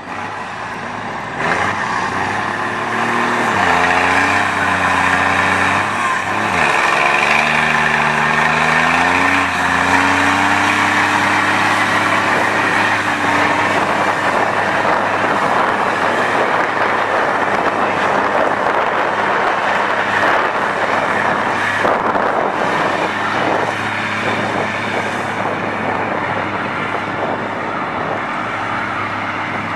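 Scania 124L 420 tractor unit's straight-six diesel revving hard in a burnout, its rear drive tyres spinning and squealing on the asphalt. The engine's pitch climbs over the first ten seconds, dropping sharply once at about six and a half seconds. The sound then settles into a steady mix of engine and tyre noise.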